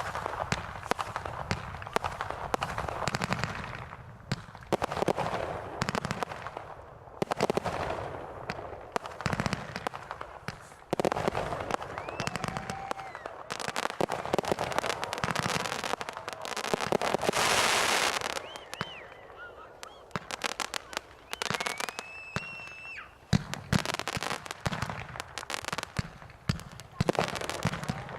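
Consumer aerial fireworks going off in quick succession: many sharp bangs and crackles, with a loud hissing stretch past the middle and a few brief whistling tones. Spectators' voices are heard throughout.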